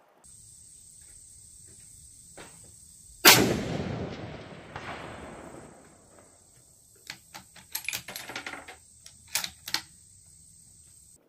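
A single .25-06 rifle shot, its report echoing away over about two seconds. A few seconds later comes a quick run of sharp metallic clicks as the bolt is worked for the next round.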